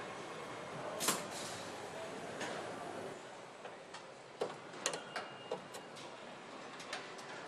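Steady car-assembly-hall background noise with a scatter of sharp clicks, the loudest about a second in and a quick run of them around the middle, as plastic wiring-harness clips are pressed into a Volkswagen Golf tailgate.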